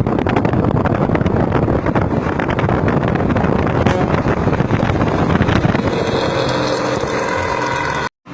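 Bus diesel engine running hard through a loud aftermarket racing exhaust: a noisy, rasping, tinny exhaust note with a fast, even firing pulse. A few steady higher tones join it about six seconds in, and it cuts off abruptly just before the end.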